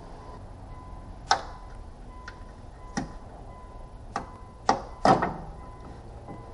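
Five sharp knocks and clicks at irregular intervals, the last two close together and loudest, over a faint steady hum.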